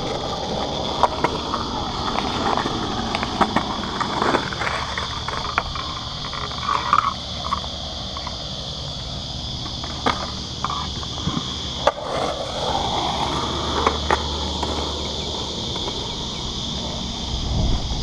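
Skateboard wheels rolling over concrete in a skatepark bowl, a steady rolling noise broken by a dozen or so sharp clacks of the board and trucks. A steady high insect drone runs underneath.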